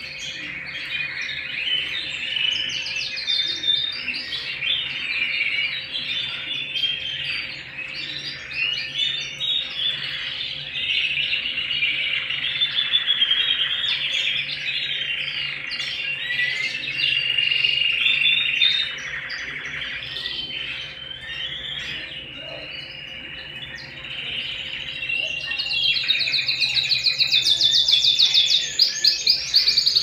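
Domestic canary singing a long, continuous song of warbles, chirps and rolling trills, ending in a fast, high rolling trill.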